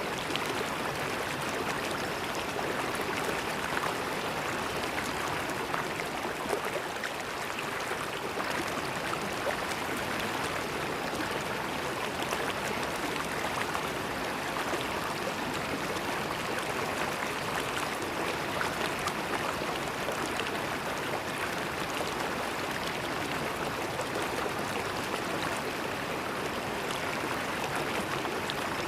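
A shallow river flowing, a steady rush of water with fine splashing.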